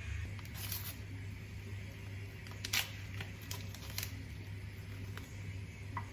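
A few short, sharp clicks and taps over a steady low hum, the loudest a little under three seconds in.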